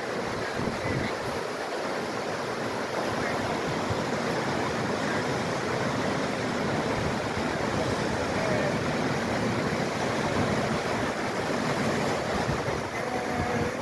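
River rapids rushing steadily: whitewater pouring around and over boulders.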